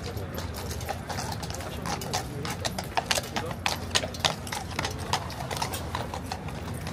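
Cavalry horses' shod hooves clip-clopping on hard ground, an irregular run of sharp clacks that is loudest around the middle.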